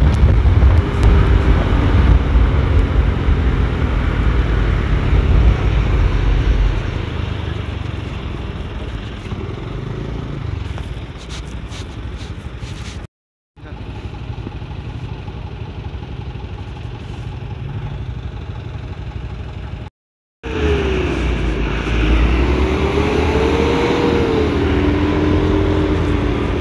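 Truck engine running on the road, mixed with wind and road noise. Two short dead-silent gaps break it, and near the end the engine note rises and falls as it revs.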